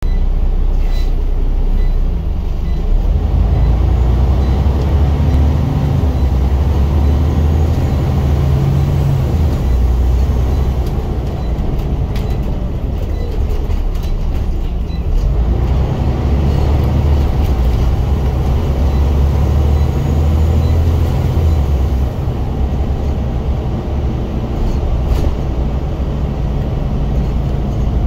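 Scania single-deck bus's diesel engine thrashing under load as heard inside the saloon, a loud low drone that builds and eases in several long spells as the bus pulls away and drives. A few light clicks and rattles sound over it.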